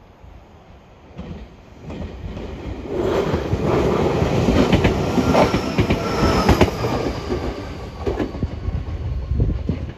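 Meitetsu 3150 series electric train passing close by, wheels clattering over the rail joints. It builds up over the first few seconds, is loudest in the middle with a faint whine falling in pitch, and eases off near the end.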